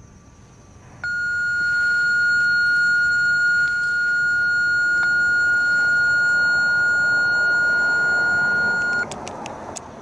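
Radio dispatch alert tone: one steady, high-pitched electronic beep that starts abruptly about a second in, holds for about eight seconds, then cuts off, followed by a few quick clicks.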